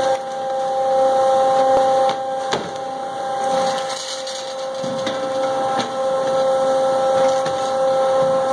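Commercial beef jerky slicer running with a steady two-tone motor whine and hiss, and a few light knocks as meat goes through the blades.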